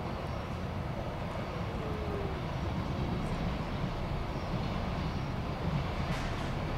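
A steady low outdoor rumble with no distinct events, and a few faint ticks near the end.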